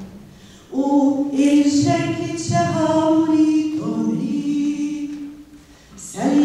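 A woman singing unaccompanied in Hungarian: a short pause, then one long sung phrase, a breath, and the next phrase starting near the end.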